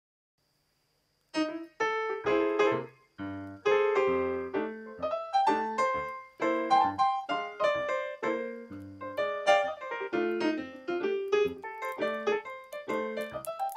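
Background piano music, a run of separate notes that starts about a second in after silence.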